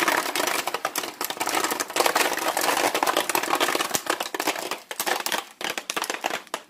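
Jiffy Pop popcorn popping in its foil pan on the stove: a dense, rapid crackle of kernels bursting, thinning out near the end as the batch nears done.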